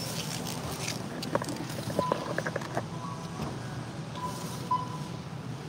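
Checkout barcode scanner giving short, high single beeps four times over a steady store hum. A few light knocks of items being handled on the counter come between the first and second seconds.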